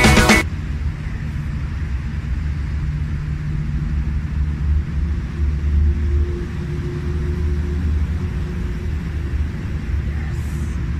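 Background music cuts off abruptly just after the start, leaving a steady low rumble with a faint steady hum in the middle part.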